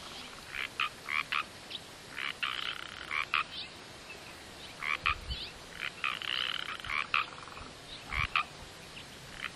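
Frogs calling: short, high calls that come in clusters of a few notes, with pauses between the bouts.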